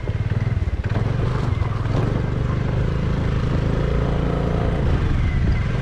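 A two-wheeler's small engine running at low speed close by while it is ridden, a steady rapid low pulsing.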